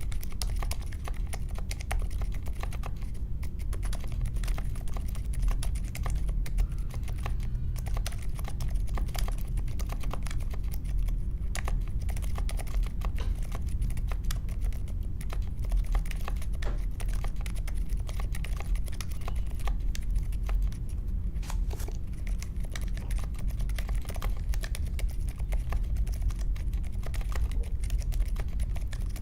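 Mechanical keyboard with unlubed Akko CS Vintage White linear switches, in an aluminium case with foam and tape mods and clipped stabilizers, being typed on steadily: a continuous run of keystrokes with no pauses.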